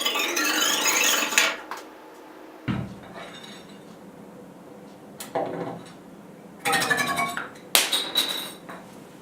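Iron bar ringing with several metallic tones that waver up and down in pitch as it vibrates, then four shorter separate rings a second or so apart.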